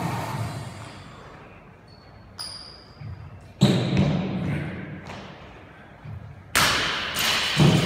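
Thuds of an athlete's feet and body landing on a wooden plyo box and a concrete gym floor during burpee box jump-overs, each ringing out in the echoing hall. Three loud landings come in the second half, the last two about a second apart.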